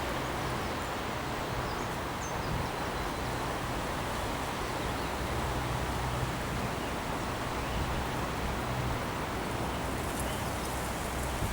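Steady outdoor wind and rustling ambience with a low rumble, and a few faint high bird chirps about two seconds in.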